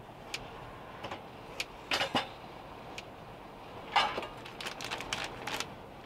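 A knife tapping and scraping on a ceramic plate while fruit is sliced: scattered sharp clicks, with louder clusters about two and four seconds in.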